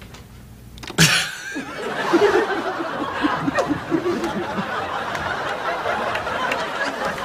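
Several people break into laughter about a second in, a sudden burst that carries on as sustained group laughing and chuckling.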